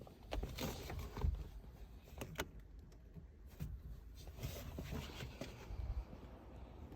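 A few light clicks and knocks, sharpest in the first couple of seconds, over a low rumble.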